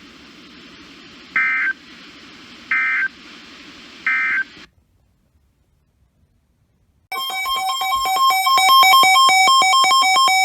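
Weather radio's EAS/SAME end-of-message data bursts: three short buzzy chirps about 1.4 s apart over radio hiss and hum, cutting off after the third. About seven seconds in, the Sangean Action radio's loud electronic alert alarm starts, a rapid pulsing beep pattern.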